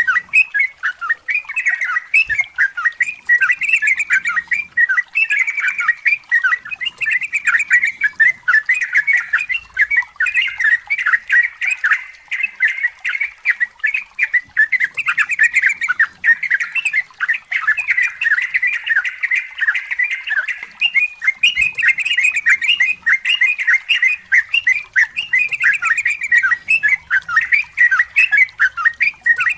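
Yellow-vented bulbul (trucukan) singing without a break: long, rapid runs of bubbling, chattering notes.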